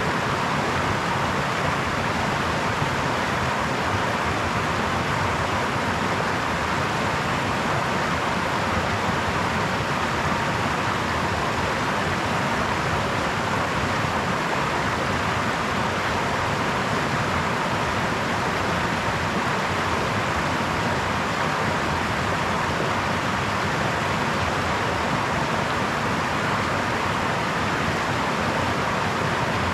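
Babbling brook: water running steadily over stones, an even rushing hiss with no change in level.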